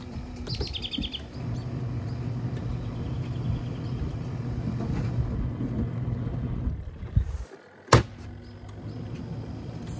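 Twin-tub portable washing machine's motor running with a steady hum, with a brief high squeak about half a second in. The hum cuts out about seven and a half seconds in, a single sharp clack comes just before eight seconds, then a softer hum resumes.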